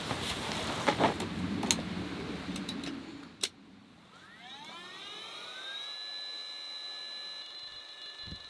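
A click, then a small electric motor spinning up: a rising whine that settles into a steady high-pitched hum.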